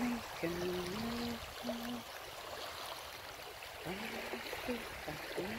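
Steady rushing noise of rain and wind on the microphone. Over it, a voice hums a few short notes that slide up into a held pitch, several times.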